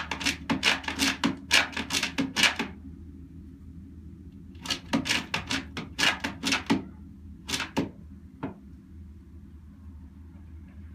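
A hen scratching with her feet at the bare wooden floor of a nest box, nest-making before laying an egg. It comes as quick runs of sharp scraping strokes: two long bouts with a pause between, then a short run and a last single scrape.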